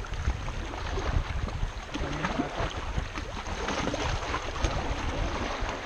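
Wind buffeting the microphone with a heavy low rumble, over choppy water lapping and splashing against a rocky shoreline.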